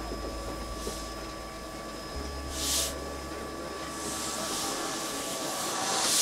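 Steam locomotive moving slowly with its cylinder drain cocks open: bursts of hissing steam about every two seconds, the loudest a little under three seconds in, then a steadier hiss building near the end.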